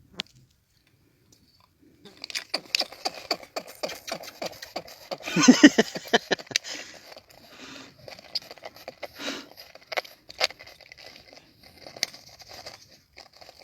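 A freshly caught silver-cheeked toadfish, a poisonous pufferfish, making its noise out of the water: a rapid run of clicks and rasps starting about two seconds in, loudest in a longer grating burst about five and a half seconds in.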